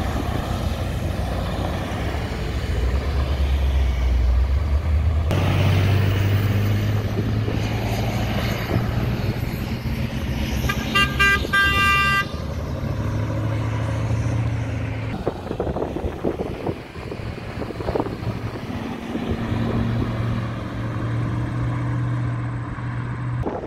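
Cars driving past one after another, their engines swelling and fading as each goes by. About eleven seconds in, a car horn gives a quick series of short toots.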